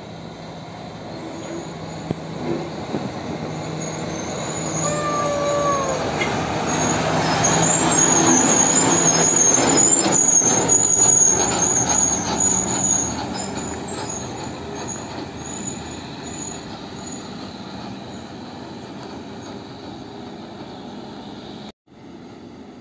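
Kato truck crane's diesel engine passing on a gravel road. It grows louder to a peak about halfway through, then fades as it pulls away. A brief falling squeal comes about five seconds in, and a high wavering squeal sounds while it is closest.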